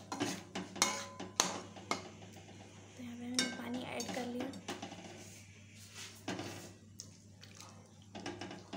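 A metal spatula scraping and knocking against a kadhai while stirring thick masala, in a run of sharp clinks, densest in the first two seconds, with quieter scraping between.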